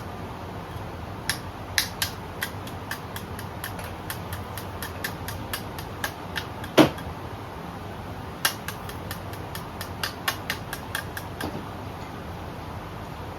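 A run of sharp metal clicks and taps from hand tools working on the engine block during piston installation, a few a second with a short pause partway, and one louder knock near the middle. A steady fan runs underneath.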